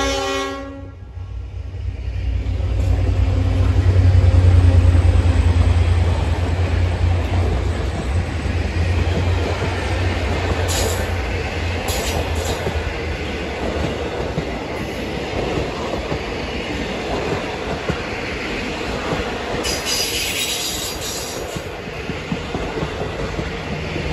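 The end of a horn blast from V/Line diesel locomotives A66 and N464, then the low rumble of their diesel engines as they pass, loudest about four to five seconds in. After that the heritage carriages roll past with steady wheel clatter and a few brief wheel squeals.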